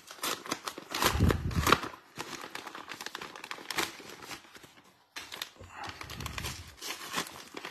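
Crinkling and rustling of a plastic-foil trading-card pack wrapper and cards being handled, a dense run of small crackles with a few soft thuds.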